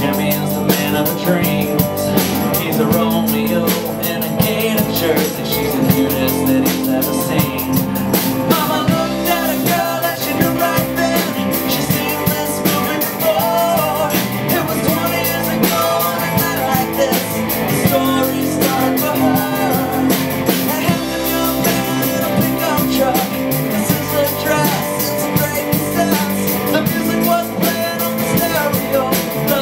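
Live band playing a song on electric and acoustic guitars, bass guitar and drum kit, with singing over it.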